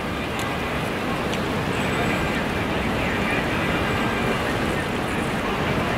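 Steady rush of city road traffic.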